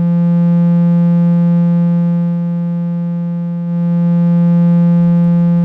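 Steady electronic tone from a Eurorack modular synthesizer, held on one low note with many overtones. It gets slightly louder nearly four seconds in.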